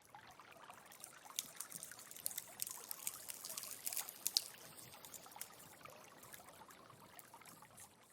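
Liquid trickling, with many small sharp clicks over it, building up to about halfway and then easing off.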